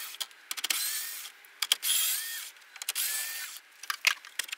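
Compact cordless electric screwdriver backing out the screws that hold a dashboard display, in three short whirring runs of under a second each. Light clicks fall between the runs.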